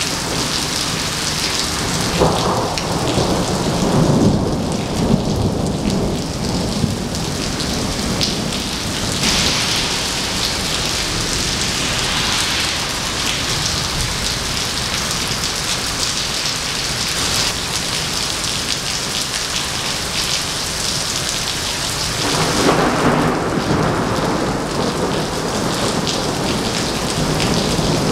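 Heavy rain pouring steadily onto wet pavement during a thunderstorm. Thunder rumbles deeply twice, about two seconds in and again late on.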